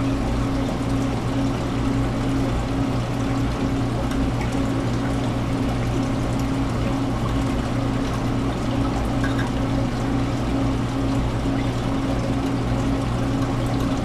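Reef aquarium's water circulation running: a steady rush and trickle of moving water over a constant pump hum.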